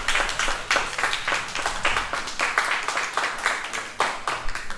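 Audience applauding, many separate hand claps coming fast and unevenly.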